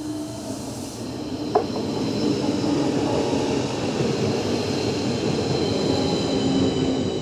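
A Stadler FLIRT electric multiple unit passing close by at speed. Its wheels rumble on the rails, with a sharp knock about a second and a half in, and a steady high whine runs above the rumble.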